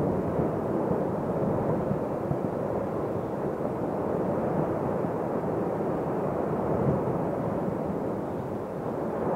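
Erupting volcano: a steady, rough rumbling noise of lava fountaining and gas venting, with a crackly texture and no pauses.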